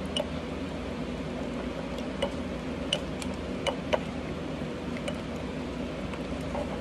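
A utensil stirring thick sourdough starter in a glass mason jar, giving a few light, irregular ticks and clinks against the glass over a steady low hum.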